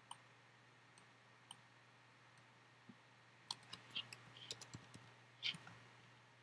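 Faint computer mouse and keyboard clicks: a few single clicks spaced out, then a quick cluster of clicks about three and a half seconds in and a louder one near the end.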